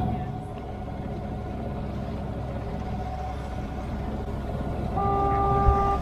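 Sailboat's inboard engine running steadily under way, with water rushing past the hull. About five seconds in, a steady horn-like tone starts and holds.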